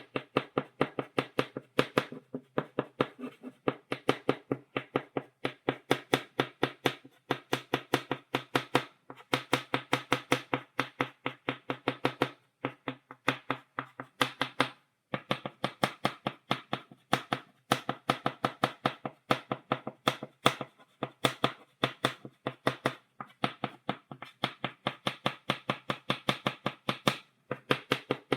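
Chalk tapping rapidly on a blackboard, dotting a stipple drawing: quick sharp clicks several a second, in runs with brief pauses.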